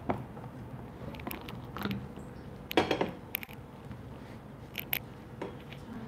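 Scattered light knocks and clinks of kitchenware being moved on a tabletop: a plate and a wooden rolling pin set down and shifted around a plastic tray. The loudest cluster of knocks comes about halfway through, with a few single taps before and after.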